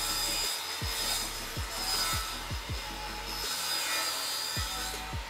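Makita circular saw running and cutting along a straight-edge guide, a steady high whine over the rasp of the blade, stopping near the end.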